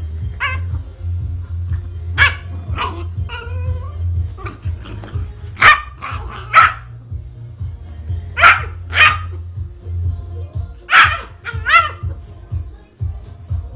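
A puppy play-barking at a hand teasing it: about nine short, high yapping barks, singly and in quick pairs, every second or two. A steady low hum runs underneath.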